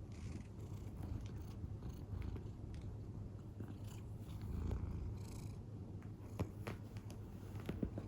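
Domestic cat purring steadily, with a few faint clicks.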